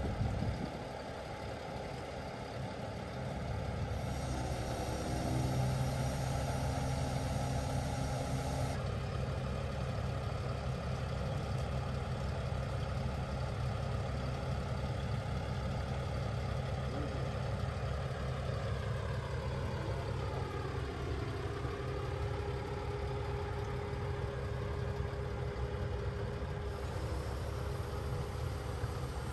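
Diesel engine of a truck-mounted knuckle-boom crane running steadily while the crane holds and moves a slung boat. The engine note gets louder about five seconds in. A higher whine falls and then rises again about twenty seconds in.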